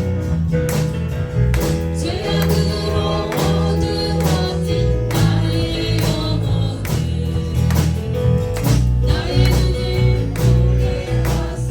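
Song with singing over a steady drum beat, bass and guitar.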